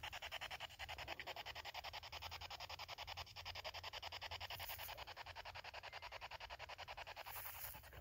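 Spirit box (radio-sweep ghost-hunting device) scanning, a fast, even stutter of static chopped many times a second as it skips through stations, with no voice coming through.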